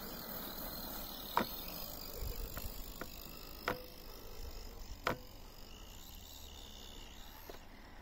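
Faint high whine of a JLB Cheetah RC buggy's brushless electric motor running at a distance, over a steady low haze, with several sharp knocks, three of them plainly loud.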